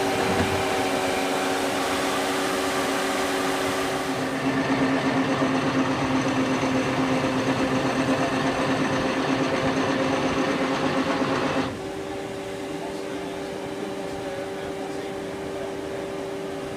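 Block band saw, a sawmill for cutting logs, running steadily with a humming drone. About four seconds in it grows louder and rougher, and it drops back abruptly to a quieter steady run a few seconds before the end.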